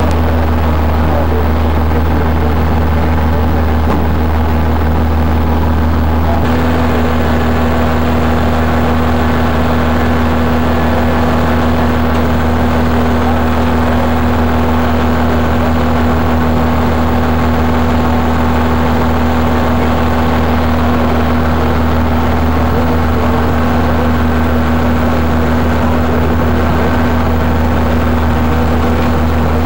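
Seagrave Squirt fire truck's engine running steadily, driving the hydraulics as the boom is worked from its joystick control, with a steady low hum and a constant higher tone over it.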